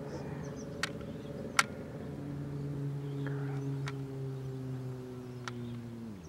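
A motor's steady drone that slowly sags in pitch and drops off sharply near the end, with a few sharp clicks scattered through it.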